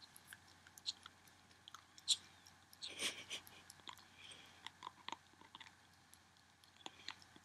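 A ferret licking and lapping vitamin supplement from a tube: faint, irregular wet clicks and smacks, with a brief louder noise about three seconds in.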